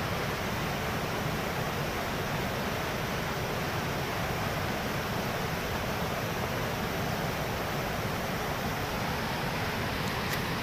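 Flooded mountain river rushing in turbulent white water over rocks, a steady, unbroken rush of water noise.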